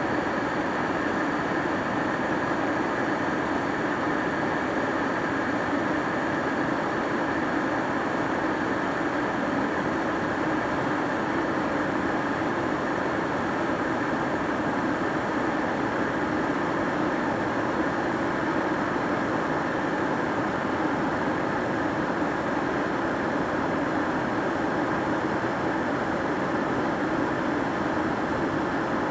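Kettle heating water: a steady rushing noise that does not change, with a faint high tone running through it.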